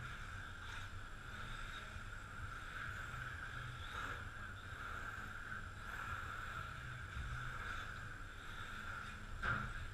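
Electric 1:10 RC touring cars running laps on an indoor track: a steady high whine with a low hum under it, and a sharp knock near the end.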